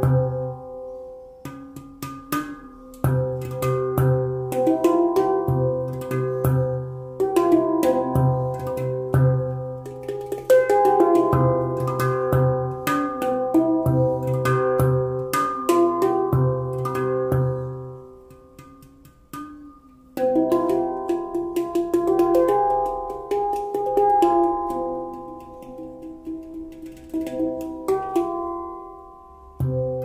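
Tala handpan in the Onoleo C scale played with the fingertips: struck steel notes ringing melodically over repeated deep low notes. The playing dies away briefly about eighteen seconds in, then picks up again.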